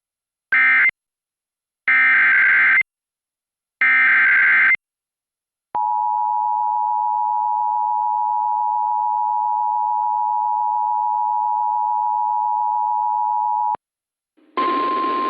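Emergency Alert System broadcast tones: three short bursts of screechy SAME digital header data about a second apart, then the two-tone attention signal held steady for about eight seconds and cut off abruptly. This signals that a new warning message is about to be read.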